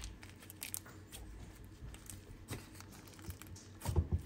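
Jelly slime mixed with clay being stretched and pressed by hand, giving off soft sticky clicks and little crackling pops, with a few soft thumps near the end as it is pressed down.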